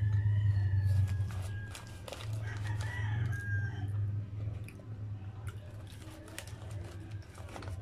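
Mukbang eating sounds: chewing, with clicks and crinkles from the paper fries bag as fries are picked out, over a steady low hum. A long, high, drawn-out call sounds in the background for the first three or four seconds, rising near its end.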